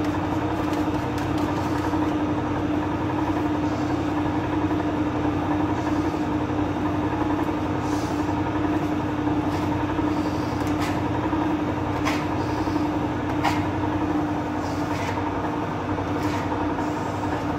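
Electric dough mixer running with a steady hum as it kneads Sangak bread dough, with a few short sharp clicks along the way.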